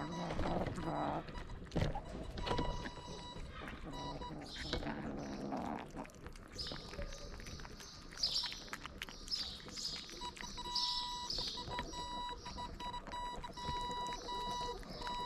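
Kittens eating wet cat food right at the microphone, with close chewing and smacking clicks. From about six seconds in, short high chirps repeat about once a second.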